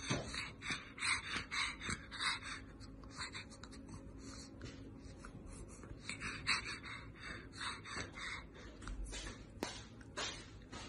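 Pug chewing a raw broccoli floret: short crisp crunches about three a second, in two runs with a pause between.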